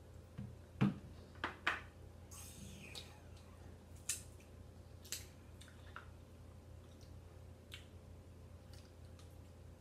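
Close-up eating sounds: scattered wet clicks and smacks of chewing and of shellfish from a seafood boil being peeled by hand, irregular and spaced a second or so apart, over a low steady hum.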